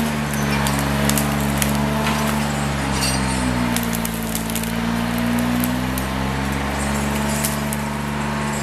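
Timberjack 230 cable skidder's diesel engine running steadily as its winch drags a pine log through brush, with branches and twigs cracking and snapping throughout. The engine note sags slightly under load about midway and comes back up.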